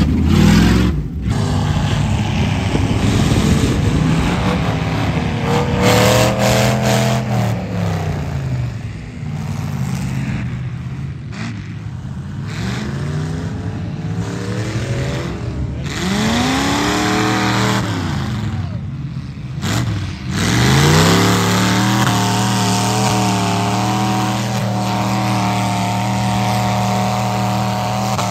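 Lifted off-road SUV engines revving hard while driving through deep mud. The pitch climbs and drops several times, with a lull in the middle, then holds high and steady for the last several seconds, with mud spraying off the tyres.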